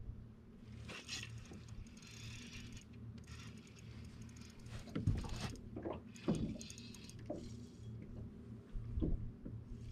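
Fishing tackle being handled on a boat deck: short mechanical clicks and rattles from the reel and gear, with a few low knocks on the deck, over a steady low hum.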